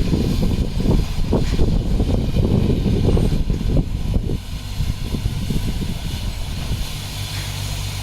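Diesel engine of heavy earthmoving machinery running under work. It is rough and irregular, with knocking and clatter, for the first four seconds or so, then settles to a steadier low drone from about five seconds in.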